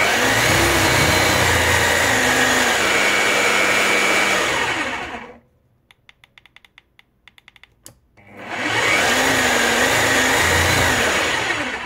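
Parkside Performance PPBH 1600 A1 SDS-Max hammer drill running with no load, twice: it winds up smoothly over about half a second, runs steadily for about five seconds with its pitch shifting slightly as the speed-selection buttons are pressed, and stops. After a pause with faint clicking, it starts up again and runs on.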